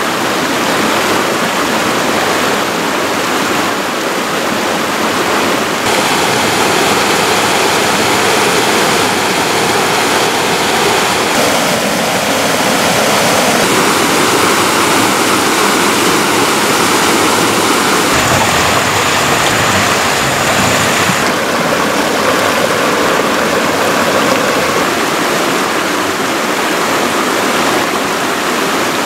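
Shallow rocky stream rushing over small cascades and a little waterfall: a loud, steady rush of water, its tone shifting abruptly a few times.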